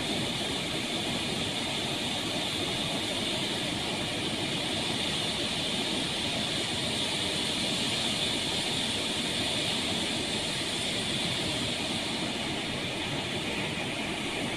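Floodwater pouring through the Kadem dam's open spillway gates, all eighteen of them lifted to release the flood: a steady, even rush of churning water.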